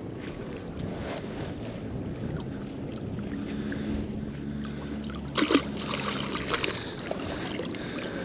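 Wind on the microphone over lapping river water, with water trickling off a wet magnet-fishing rope as it is hauled in hand over hand. A short, louder noise comes about five and a half seconds in.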